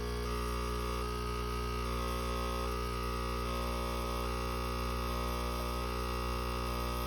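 Ascaso Dream espresso machine's pump running with a steady, unchanging drone as water is pushed through the newly fitted replacement over-pressure valve to test it.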